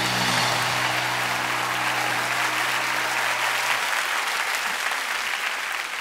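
A large audience applauding, dense and steady. A low held note rings under it at first and dies away about four seconds in.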